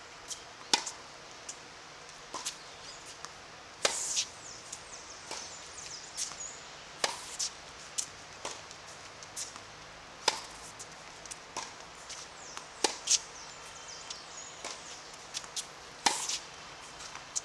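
Tennis rally on a hard court: sharp pops of the racket striking the ball, the loudest about every three seconds, with fainter ball bounces and far-court hits between.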